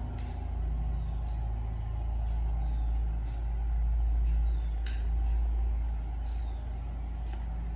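Electric pedestal fan running: a steady low hum and rumble, with a faint click about five seconds in.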